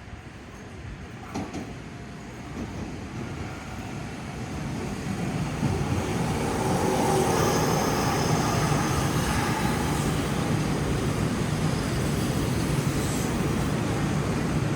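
Six-car electric train pulling into a station platform. Its running noise grows louder over the first six seconds, then holds steady as the cars pass.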